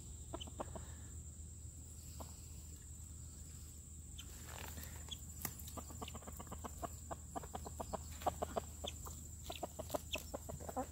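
A flock of backyard chickens clucking. The calls are sparse at first, then become a busy run of short clucks from about four seconds in.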